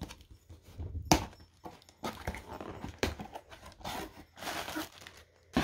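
Hands opening a cardboard shipping box: irregular tearing and scraping of packing tape and cardboard flaps, with sharp snaps about a second in and again about three seconds in.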